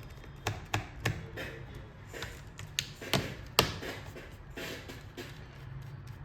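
Irregular sharp clicks and taps of a screwdriver and hands on a laptop's plastic bottom cover as its screws are tightened, the loudest a little past halfway.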